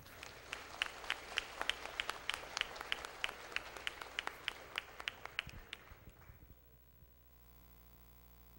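Audience applauding: a round of clapping with a few close, regular claps about three a second, dying away about three-quarters of the way through and leaving a faint steady hum.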